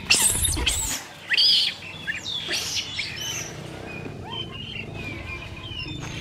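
Long-tailed macaques shrieking during a brief scuffle, several loud high-pitched screams in the first three seconds. Fainter short bird chirps follow.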